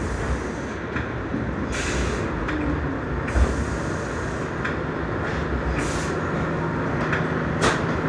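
Inside an R62A subway car running on the track: a steady low rumble of wheels on rail, with brief hissy bursts of higher noise every second or two. A faint steady hum joins about five seconds in.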